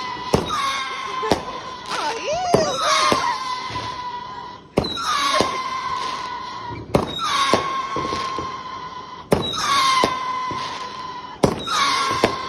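Firework firing shot after shot: a sharp pop about every two seconds, each followed by a whistle that drops in pitch and then holds a steady note.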